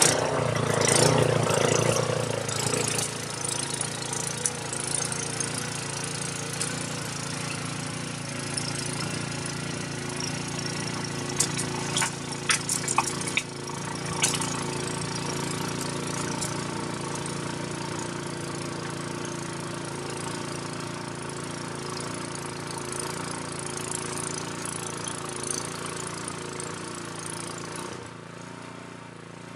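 Troy-Bilt XP Storm Tracker 2690 tracked two-stage snowblower running steadily while clearing snow. Its engine is loudest in the first couple of seconds and fades slowly as the machine moves away. A short cluster of sharp ticks comes a little before the middle.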